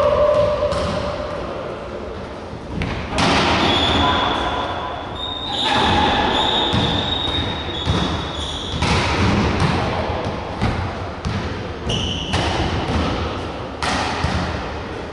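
Volleyball rally: the ball being struck and bouncing on the wooden floor, a series of sharp thuds that echo around a large gym hall.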